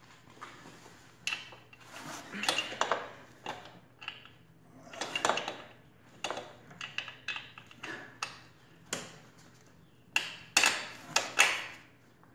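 Irregular metallic clinks, taps and short scrapes in bunches, loudest near the end, as the lower eye of a new YSS stage 2 rear shock is worked by hand into line with its mount on a Honda Grom.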